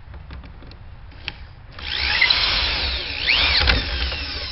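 Corded electric drill boring a bolt hole through the wooden beam and bracket of a swing set. After a few light clicks, the motor starts about two seconds in and runs loud, its whine rising and falling in pitch as the bit loads up in the wood, a strain the user reckons is probably not good for the motor.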